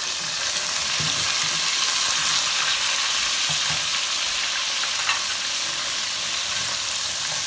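Potato chunks sizzling steadily in hot oil in a nonstick pot, with a few light knocks of a spatula against the pan.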